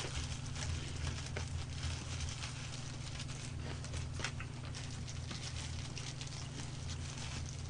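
Faint scattered clicks and crackles of fried chicken gizzards being pulled apart by a plastic-gloved hand, with a fork working in small sauce cups, over a steady low hum.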